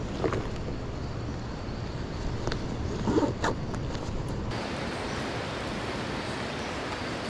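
Steady rush of surf, with a few brief louder sounds about a third of a second in and again around three and a half seconds in.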